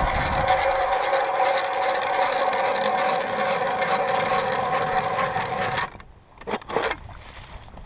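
Ice auger cutting into river ice: a steady grinding scrape that stops abruptly about six seconds in, followed by a couple of short scrapes.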